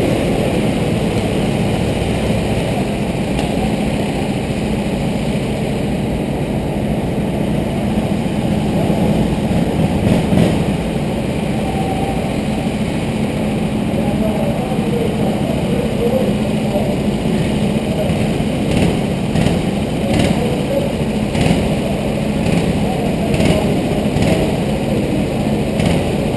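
Go-kart engines running on the track, a steady drone with faint rises and falls in pitch.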